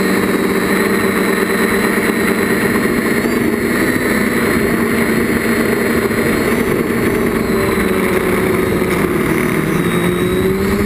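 Quadcopter's DJI brushless motors and propellers running in flight, picked up by the onboard GoPro. A steady buzzing hum of several tones that shifts slightly in pitch with throttle.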